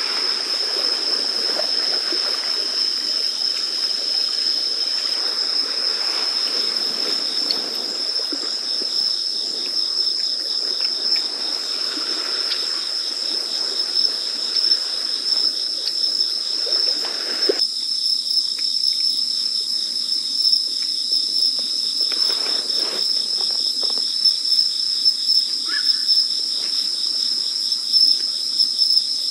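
Crickets and other night insects chirping in a steady, high, unbroken trill. Under it a low rushing noise cuts off suddenly about two-thirds of the way through, and a few faint clicks and rustles of handling follow.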